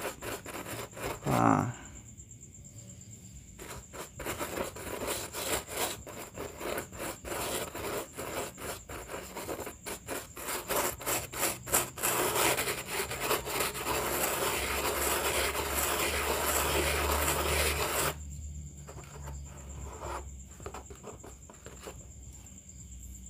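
Hand scraping on a loudspeaker's parts: a run of short rasping strokes, then a few seconds of steady, denser scraping, then only odd light clicks. The scraping widens the voice-coil opening and clears old hard glue. A cricket chirps steadily in the background.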